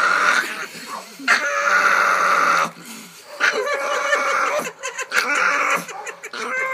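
Puppy screaming in long, loud, shrill squeals while its nails are clipped, a protest at being held for the trim. One cry stops about half a second in, another runs from just over a second to nearly three, and a third, more broken one lasts from about three and a half seconds to nearly six.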